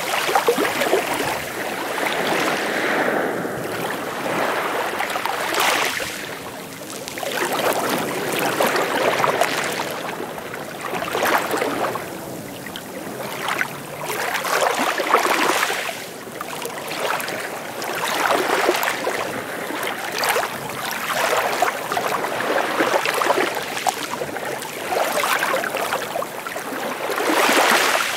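Small waves lapping and splashing against the shore, the wash swelling and fading every few seconds.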